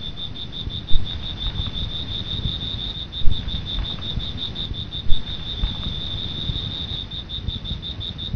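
Rain-and-crickets ambience: a steady rain hiss with crickets chirping in a rapid, even pulsing trill. Three sudden louder thumps stand out, about a second, three seconds and five seconds in.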